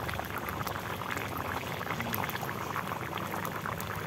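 Duck meat curry bubbling at a full boil in a large iron kadai over a wood fire, a steady stream of small pops and blips. The meat is nearly cooked through.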